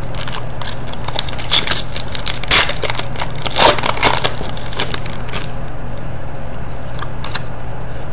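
A foil trading-card pack wrapper being torn open and crumpled by hand, crinkling and crackling from about a second and a half in, loudest around two and a half and three and a half seconds in. After that come softer rustles of the cards being handled.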